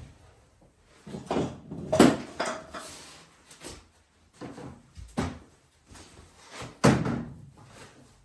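Knocks, thumps and scraping as a boxed diesel heater and its cardboard and foam packaging are handled and shifted about, with the loudest thumps about two seconds in and near the end.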